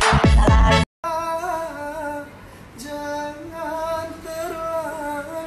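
A pop dance track cuts off abruptly about a second in. Then a man sings unaccompanied in long, wavering held notes.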